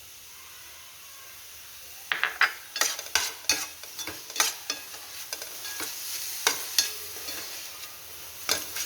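A spatula scraping and knocking against a kadhai as a thick coconut-and-sugar filling is stirred, over a soft sizzle. The strokes start about two seconds in and come irregularly, several a second.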